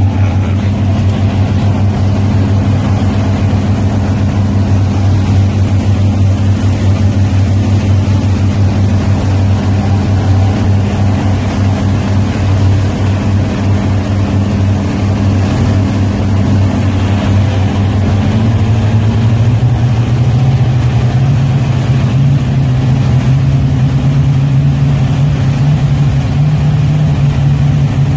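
Twin inboard gasoline engines of a 1978 Carver 28 cruiser running steadily under way; about two-thirds of the way through they speed up and the engine note rises and holds at the higher pitch.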